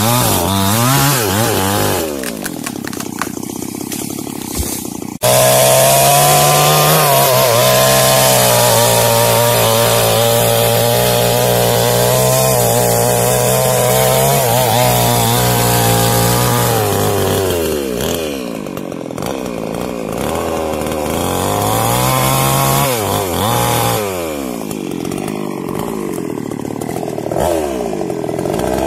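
Small two-stroke New Paxton chainsaw cutting through a jengkol tree trunk. The engine pitch sags under load and climbs again as the saw is revved, several times over, and it gets suddenly louder about five seconds in.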